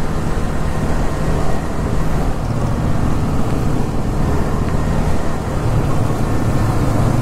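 Motorcycle running steadily along a road, a low engine hum mixed with wind on the microphone.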